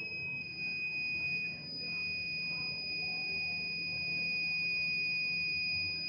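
Buzzer of a homemade fire alarm model sounding its alarm as one steady, unbroken high-pitched tone.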